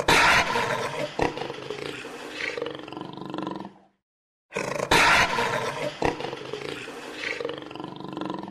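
A big cat's roar, about four seconds long with a sharp start and a thump about a second in. The identical roar is heard again about four and a half seconds in, the same recording played twice.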